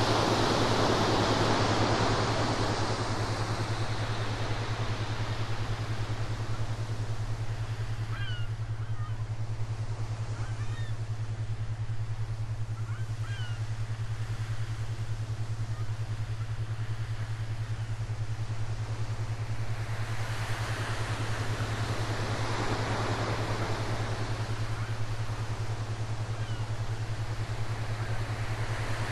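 Ocean waves washing in, the surf noise swelling and fading slowly, louder at the start and again about twenty seconds in, over a steady low hum. A few faint short chirps come through in the middle.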